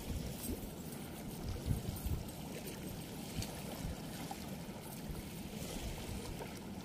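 Steady outdoor rushing noise of flowing river water and wind rumbling on the microphone, with faint rustles from a cast net being handled.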